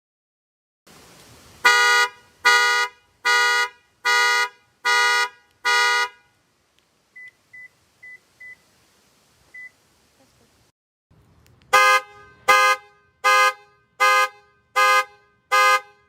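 Car horns sounding in panic-alarm mode: one horn honks six times in a steady rhythm, a little over one blast a second. After a few faint short beeps, a second horn with a different tone honks six more times at the same pace.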